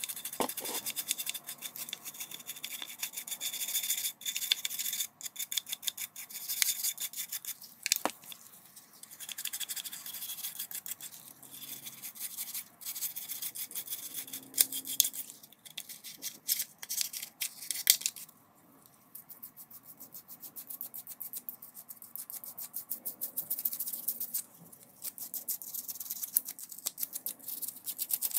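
Toothbrush bristles scrubbing grime off a DeWalt drill's plastic housing and small parts in quick back-and-forth strokes. There is a short pause about two-thirds of the way in, then the scrubbing resumes more softly.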